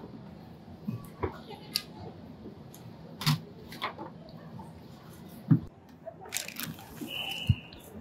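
Shop background noise: scattered knocks and rustles of goods and packaging being handled, a brief rustling burst about six seconds in, and a short high electronic beep near the end.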